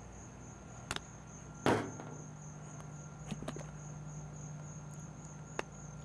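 Steady chirring of insects, with a few short knocks and clicks from condiment squeeze bottles being handled and set down. The loudest knock is a single thump a little under two seconds in.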